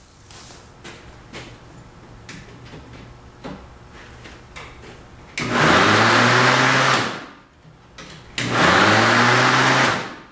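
Craftsman Model 37051 electric mower's motor and blade switched on twice, each run lasting about a second and a half. The motor comes up to speed with a rising whine, runs loud, then winds down when released: it is running again on its newly replaced shunted brush. A few light knocks come before the first run.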